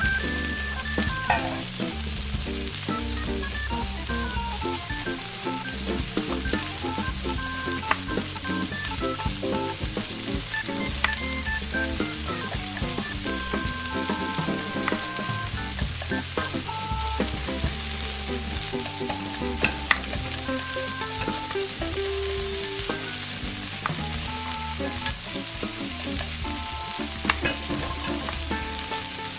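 Meat pieces sizzling as they fry in a miniature stainless saucepan, stirred with a tiny metal spoon that gives occasional light clicks against the pan.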